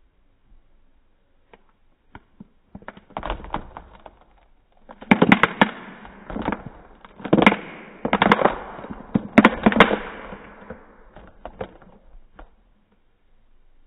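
Gummy candies pouring out of a tipped plastic cup onto a tabletop: a few stray clicks, then a long run of irregular clattering as the candies tumble against the cup and table, loudest and densest in the middle, thinning out near the end.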